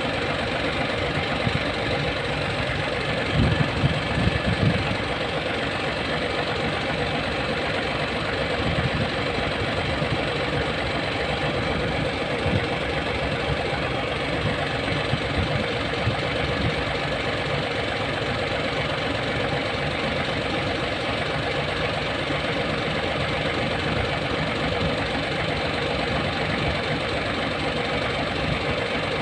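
Hino E13C inline-six diesel engine idling steadily, with a few louder low knocks about three to five seconds in.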